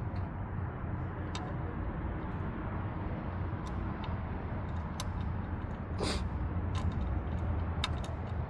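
Scattered light clicks and taps of metal parts being handled and fitted around the belt tensioner in the engine bay, one stronger knock about six seconds in, over a steady low hum.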